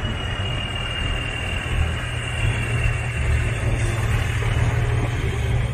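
Heavy multi-axle missile transporter-launcher truck driving past with its engine running steadily. A faint high whine fades out over the first few seconds.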